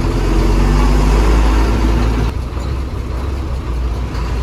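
Bus diesel engine running under load, heard from inside the cabin as a loud low rumble with a steady engine note. About halfway through, the note fades and the sound eases slightly, while the rumble carries on.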